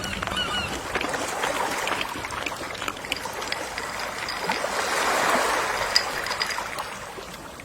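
Gentle sea waves washing onto the shore: the wash swells to a peak about five seconds in, then draws back.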